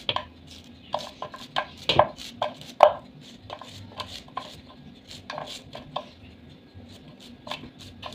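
Knife slicing a nopal cactus paddle held in the hand, cutting it into strips over a bowl: a string of irregular crisp cuts, about one or two a second.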